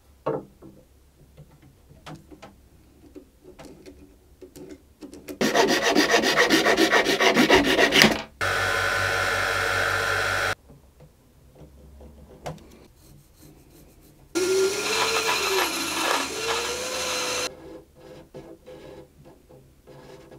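A new ebony nut is cut and shaped with power tools. First come quiet tapping and rubbing as the blank is handled. About five seconds in, a band saw cuts the ebony. Then an electric disc sander runs at a steady pitch, and after a pause runs again with its pitch sagging and recovering as the ebony is pressed against the disc. Light rubbing of hand filing follows near the end.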